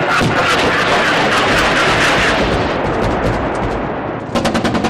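Gunfire in a firefight: a continuous heavy roar of overlapping shots and blast rumble, then about four seconds in a machine gun starts firing rapidly.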